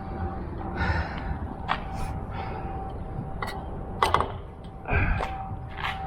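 Hard breathing from exertion, with a few sharp clicks and knocks, while a heavy magnet-fishing catch is hauled out of the water. A faint steady tone runs underneath.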